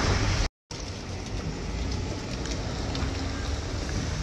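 Steady hiss over a low rumble from a vehicle moving along a wet, slushy road. The sound cuts out completely for a moment about half a second in, then carries on a little quieter.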